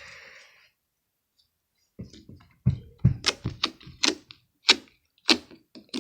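Slime being handled and squished: a run of irregular small clicks and squelchy knocks that starts about two seconds in after a short quiet pause.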